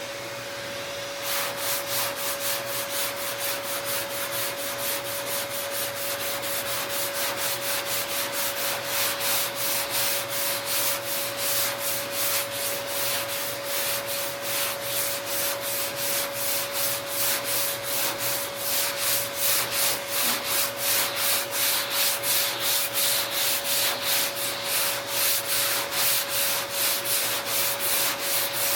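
Hand block-sanding of body filler on a 1969 GTO's front fender: sandpaper on a sanding block scraping in steady, rhythmic back-and-forth strokes, starting about a second in. A steady hum runs underneath.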